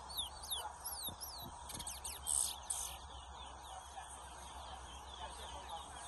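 Caged towa-towa finches (chestnut-bellied seed finches) singing in a song contest: rapid, high whistled notes that slide up and down, loudest a little over two seconds in.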